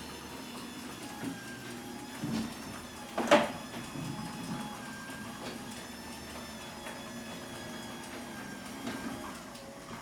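LiftMaster 8550W DC belt-drive garage door opener running steadily, lowering the door with a low hum and a faint whine, with scattered light knocks from the door and one loud sharp clack about three seconds in.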